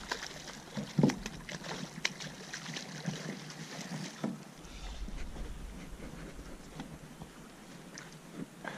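A hooked lake trout splashing and thrashing at the water's surface as it is landed, with several sharp knocks, the loudest about a second in. Later the splashing dies down to a quieter wash of water.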